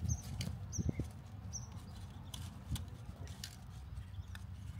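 Scattered small clicks and light rustling of hands handling things at close range, over a steady low rumble.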